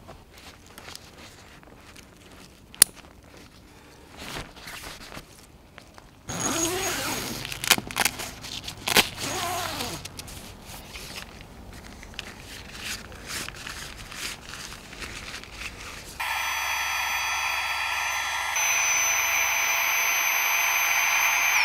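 Nylon tent fabric rustling, with clicks and knocks of the poles as a bivy tent is pitched. Near the end a louder steady hum of several fixed tones sets in, steps up once, then falls away in pitch.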